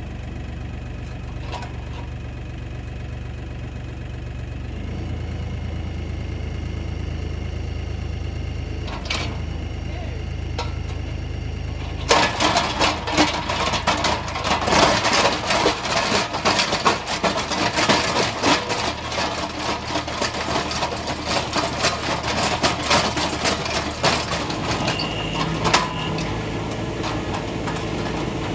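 Tractor engine running steadily. About twelve seconds in, a loud, dense rattling and crackling begins, full of sharp clicks, and lasts about twelve seconds. This fits a tractor-mounted post-hole auger grinding into rocky ground. The steady engine sound returns near the end.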